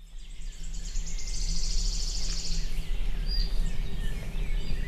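Forest ambience: an insect trilling in a fast, even pulse for about two seconds, with birds chirping over a low steady hum.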